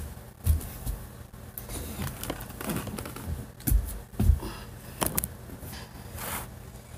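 Low thumps and rustling of fabric as a person moves about and climbs onto a bed, with a few small clicks in between; the heaviest thumps come about half a second in and twice around four seconds in.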